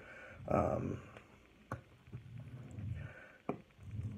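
A knife blade and whetstone being handled: a few light, sharp clicks, about three, spaced a second or more apart, over a soft low background.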